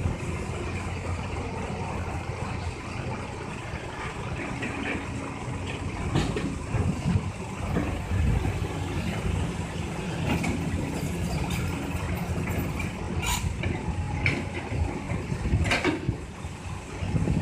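Caterpillar 320C excavator's diesel engine running steadily under working load, with several sharp knocks and clanks from the digging and loading work.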